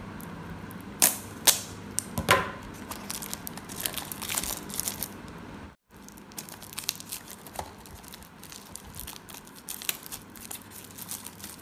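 Scissors snipping through the plastic shrink-wrap on a small cardboard earbuds box, several sharp snips about a second or two in, then the thin plastic wrap crinkling and tearing as it is peeled off the box.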